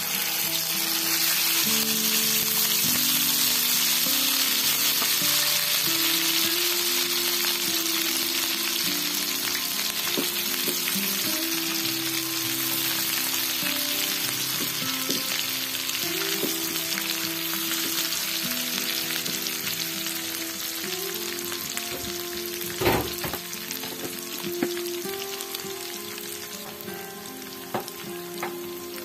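Red ground chili paste frying in hot oil in a non-stick wok, stirred with a silicone spatula: a loud sizzle that starts suddenly as the paste meets the oil and slowly eases. A sharp knock a little past two-thirds of the way through.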